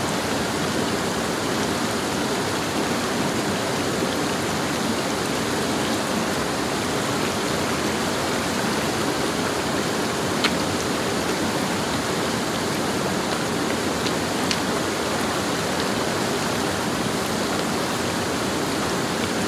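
Creek water rushing steadily over rocks, an even rush with no letup. A single short click about ten seconds in.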